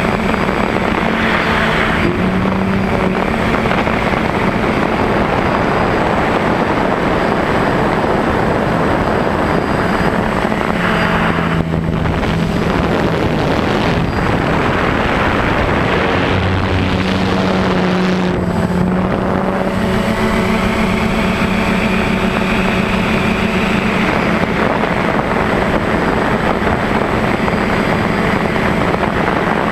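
DJI Phantom quadcopter's motors and propellers buzzing loudly in flight, heard close up from the camera on board; the low motor tone steps up and down in pitch now and then as the drone manoeuvres.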